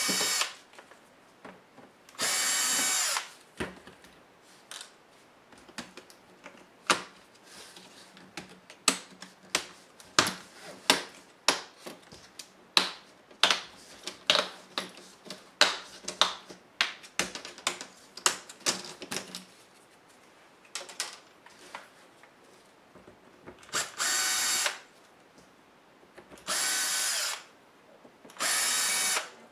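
A cordless electric screwdriver whirs in short bursts of about a second, taking out laptop screen screws: once near the start and three times near the end. In between comes a long run of sharp plastic clicks and snaps as the laptop's screen bezel is pried off its clips.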